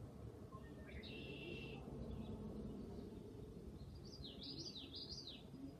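A small bird chirping faintly: a short call about a second in, then a quick run of rising-and-falling chirps near the end, over low background noise.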